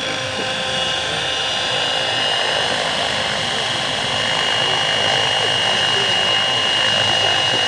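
Radio-controlled model helicopter flying, its rotors and motor giving a steady high whine that grows gradually louder.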